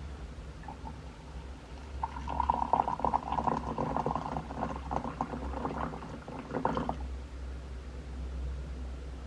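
A thin stream of hot water poured into a glass mug, splashing and filling it. The pour starts about two seconds in and stops about seven seconds in.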